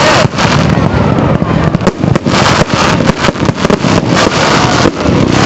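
Fireworks display going off: many sharp bangs and crackles in quick succession over a continuous loud rumble.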